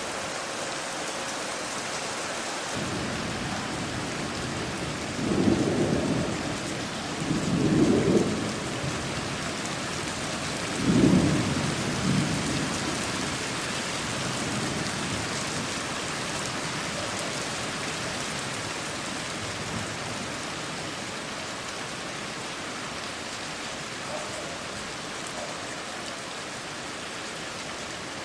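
Steady rain hissing with a thunderclap rolling through it. The rumble builds about three seconds in, peaks loudly three times (around five, eight and eleven seconds), then dies away under the continuing rain.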